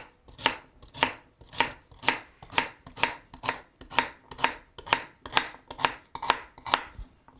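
Chef's knife slicing through a celery stalk and knocking on a bamboo cutting board, steady chops about two a second, a little quicker toward the end and stopping just before it.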